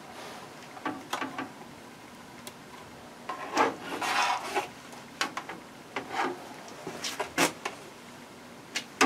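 Hard plastic being worked with a plastic-welding iron: irregular scrapes, rubs and light clicks, with the longest stretch of rubbing about three and a half to four and a half seconds in.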